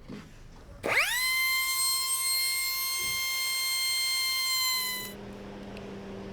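Electric power drill spinning up to a steady high-pitched whine, running for about four seconds and then stopping. A lower steady hum follows near the end.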